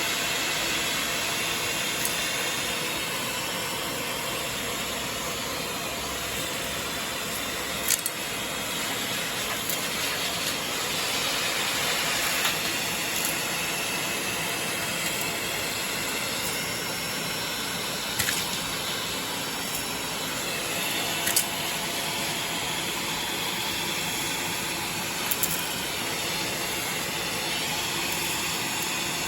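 Bagless vacuum cleaner running with a steady hissing rush of air, broken by about half a dozen sharp clicks or knocks.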